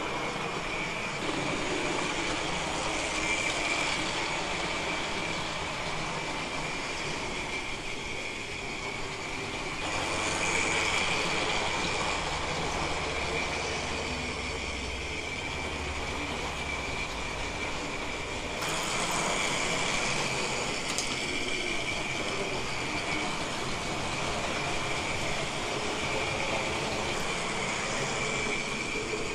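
Tri-ang Hornby model trains running on the layout's track: a steady rumble of small wheels on rail with a constant high whine. The sound changes abruptly about ten and eighteen seconds in.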